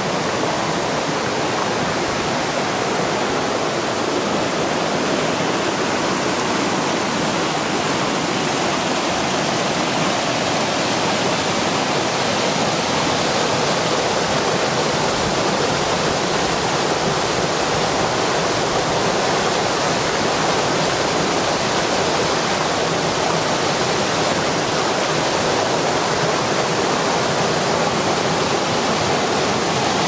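Waterfall heard from right at its lip: a steady, loud rush of water pouring over the rock into the plunge pool below.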